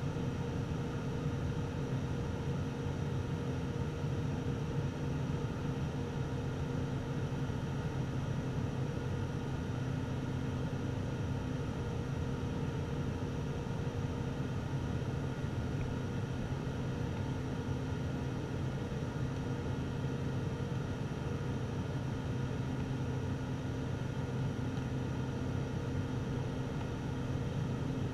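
Turboprop airliner in flight heard from inside the cabin beside the engine: a steady drone of propeller and engine with several held, even tones over a rushing hiss, unchanging throughout.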